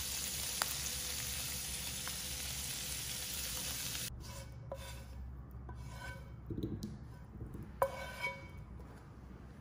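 Shrimp sizzling in hot oil in a frying pan, a steady hiss that cuts off suddenly about four seconds in. Then a spatula scrapes across the pan as the shrimp are pushed out into a bowl, with a few short scrapes and light knocks.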